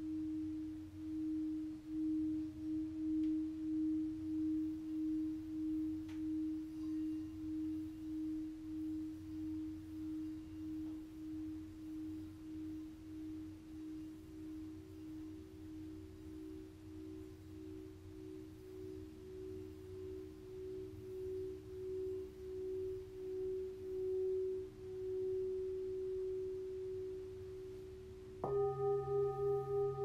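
Singing bowls ringing: a long, steady low tone that swells and fades in slow, regular pulses, with a second, slightly higher tone joining about ten seconds in. Near the end a higher bowl sounds suddenly, ringing with several overtones and pulsing faster.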